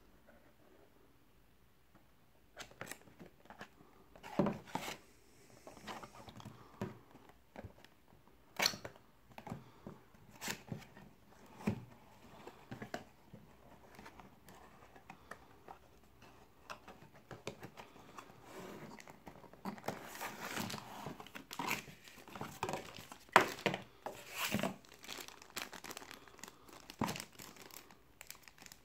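A cardboard retail box being handled and opened by hand, with scattered rustles and taps of card. Denser crinkling of a clear plastic bag comes in about two-thirds of the way through. The first couple of seconds are nearly silent.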